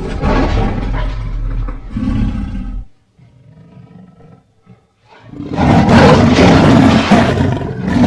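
Lion-like monster roar sound effects: one roar ends about three seconds in, and after a short lull a second, louder roar starts around five and a half seconds in.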